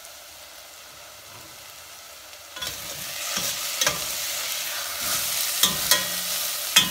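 Chopped onions frying in oil in a stainless steel saucepan, nearly done: a soft sizzle that grows louder about two and a half seconds in as a metal spoon starts stirring, with several clicks and scrapes of the spoon against the pan.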